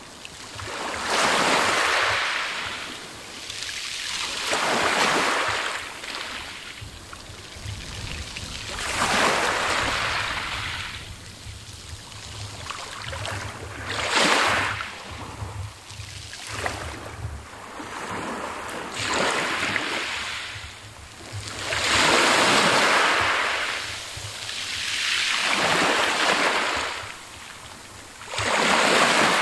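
Small waves breaking and washing up a pebble beach, one every three to four seconds, each a rush of water that swells and fades.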